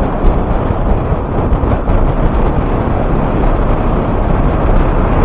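Steady wind rush buffeting the microphone of a Yamaha sport motorcycle riding at about 49 on the speedometer, with the bike's engine and road noise blended in underneath.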